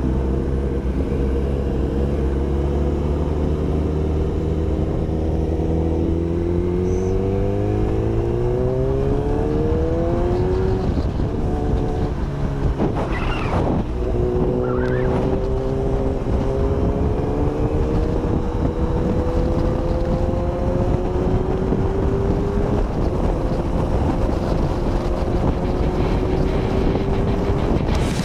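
Kawasaki Ninja ZX-10R's inline-four engine under way, its pitch rising steadily as it accelerates, dropping once about eleven seconds in at an upshift and then climbing slowly again, with wind and road noise on the camera microphone.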